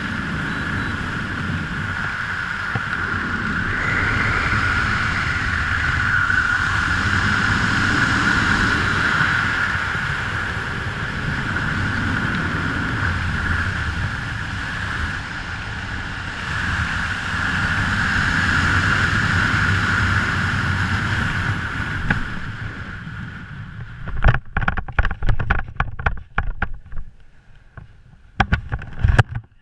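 Steady rush of airflow over a helmet-mounted camera microphone as a skydiver descends under an open parachute canopy. It fades out about three quarters of the way through and gives way to a run of sharp knocks and rustles as the jumper touches down on grass.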